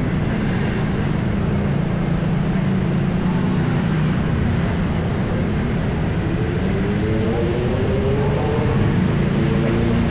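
Steady city street traffic noise, with a vehicle engine's note rising in pitch from about six seconds in.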